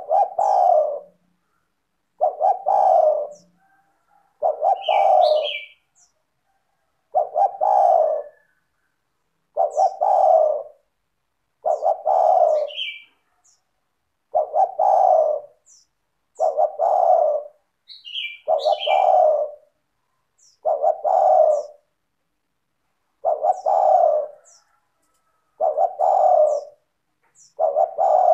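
Spotted dove (tekukur) cooing over and over, one phrase about every two seconds, each a few quick notes running into a longer coo. Faint high chirps of small birds sound between the phrases.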